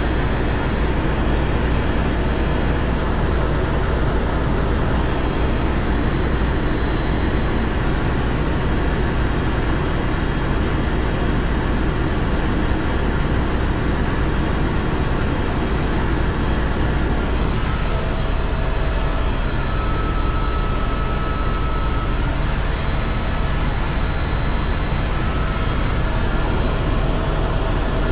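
Steady helicopter noise in flight, heard from inside the cabin: a continuous deep rotor thrum under engine and airflow noise, with a faint steady whine coming in a little after halfway.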